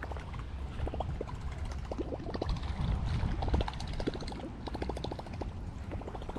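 Wind rumbling on the microphone, with small choppy waves lapping and splashing against the pond bank in quick irregular clicks.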